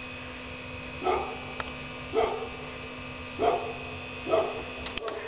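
A dog barking four times, about a second apart, over a steady low hum.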